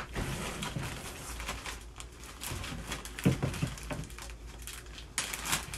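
Plastic bag and packing foam crinkling and rustling as they are handled and pulled open, in irregular bursts, with a dull knock a little past halfway.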